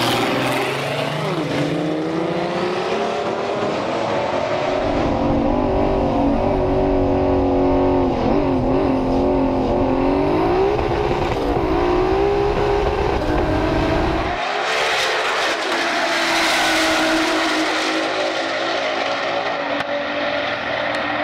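A turbocharged VR6-powered car's engine running at low speed, its pitch wavering up and down with light throttle. About two-thirds of the way through, the deep rumble drops away and a brighter hiss comes up, with the engine still audible.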